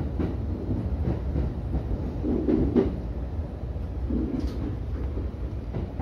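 JR E233 series electric train running, heard from inside the front car: a steady low rumble with a few sharp clacks of wheels over rail joints and points, the clearest about three seconds in and again about four and a half seconds in.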